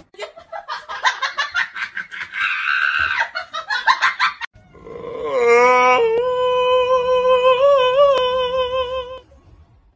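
Rapid pulsed laughter, then a tabby cat's long meow that rises at the start, holds one pitch for about four seconds with a brief wavering near the end, and cuts off suddenly.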